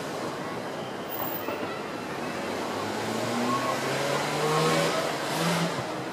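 Murmur of a crowd of outdoor fireworks spectators, with no bursts going off. From about halfway through, an engine note rises in pitch and is loudest near the end.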